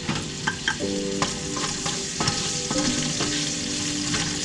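Diced ham sizzling as it fries in hot oil in a metal pan, stirred with a wooden spatula that scrapes and clicks against the pan.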